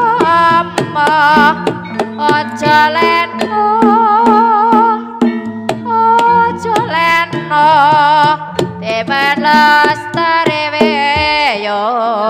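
Javanese Ponorogo-style gending: sharp kendang drum strokes under a wavering, ornamented melody line, with a long downward slide in the melody near the end.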